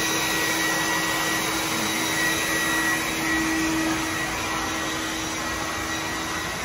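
Wet/dry shop vacuum running steadily: a constant rushing air noise with a steady motor whine. It is clearing up the grease-laden water spilled from the old grease interceptor.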